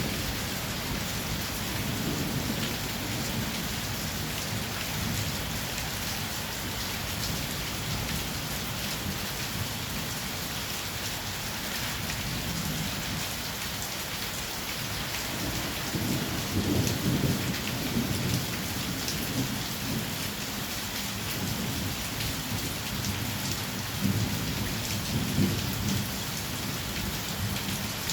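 Heavy rain pouring steadily, with low thunder rumbling through it several times, loudest about two-thirds of the way in.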